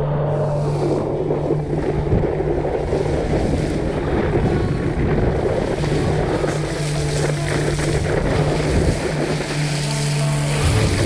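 A sailboat under way: water rushing along the hull and wind buffeting the microphone, with a steady low hum that comes and goes.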